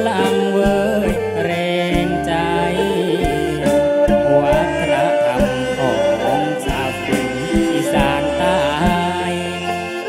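Live kantrum band music: a singer's voice over keyboards, electric guitar and bass, with a drum kit keeping a steady beat.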